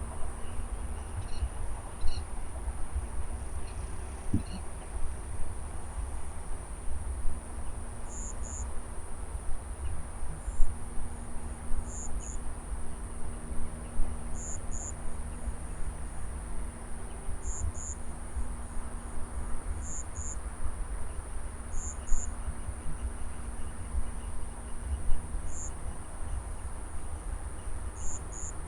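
Field insects: a steady high-pitched trill, with a short double chirp repeating about every two seconds, over a constant low rumble.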